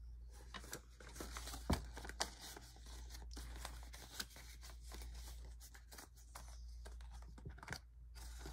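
Paper banknotes rustling and crinkling as they are handled, folded and slid into a clear plastic binder pocket. Soft, irregular small ticks and rustles throughout.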